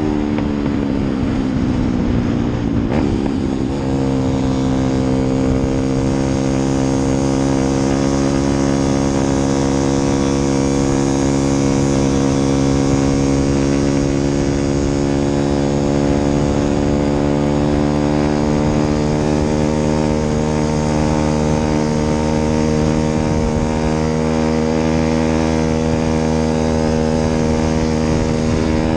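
An engine running steadily. Its pitch falls over the first few seconds, then holds nearly level with a slow slight rise.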